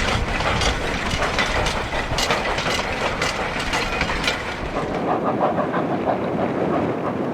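Denver and Rio Grande Western No. 315, a narrow-gauge 2-8-0 steam locomotive, running with its freight train: steam hiss and the clickety-clack of wheels over the rails. The low rumble drops away about five seconds in, while the rail clatter goes on.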